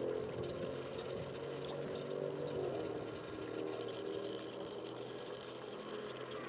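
An engine hums steadily, loudest near the start and easing off slightly toward the end.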